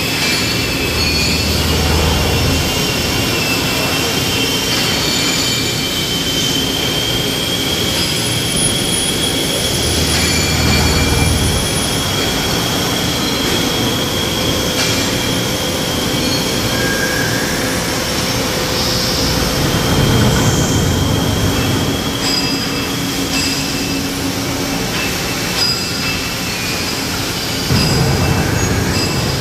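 Steady machine-shop din from machining centres running, with thin high whining tones and a steady hum over a constant noisy background. Four times, about every nine seconds, a short low rush swells over it.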